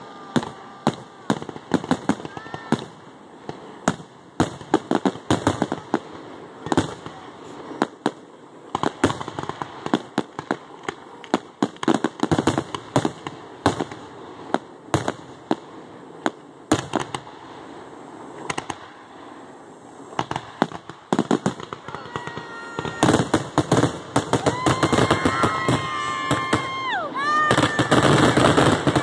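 Aerial fireworks shells bursting in a string of sharp bangs and crackles, building into a dense, louder barrage over the last several seconds with high whistling tones among the bursts.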